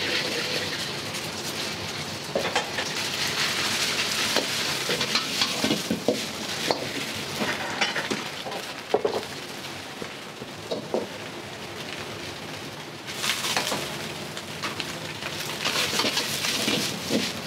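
Food sizzling hard in a hot wok, with a metal utensil knocking and scraping against the pan every second or two. The sizzle swells sharply about thirteen seconds in and again near the end.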